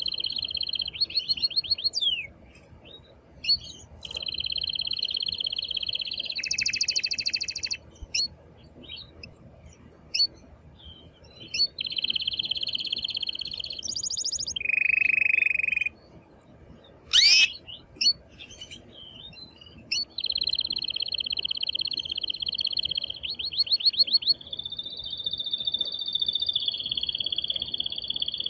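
An excited male domestic canary singing its full song in phrases several seconds long: rolling trills, bursts of rapid repeated notes and a sharp down-swept note. Short pauses fall between the phrases.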